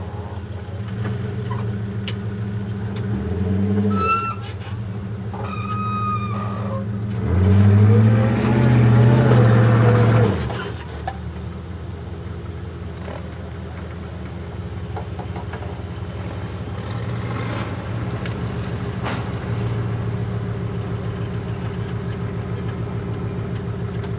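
Off-road trial truck engine running at low revs as the truck crawls over deep ruts, with a louder rev of rising pitch from about 7 to 10 seconds in. A few short high squeals come a little before the rev.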